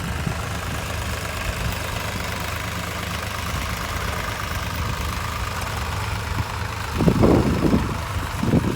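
Engine of a tractor ploughing a paddy field, running steadily with a low hum, then growing louder and rougher in uneven surges about seven seconds in.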